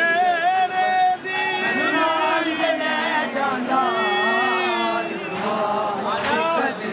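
Men's voices chanting a noha, a Shia mourning lament, together, holding and bending long notes.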